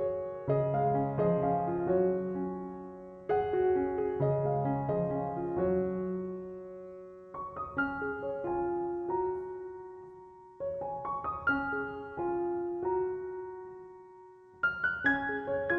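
Piano music: notes and chords struck and left to ring, in phrases that fade away before the next one begins.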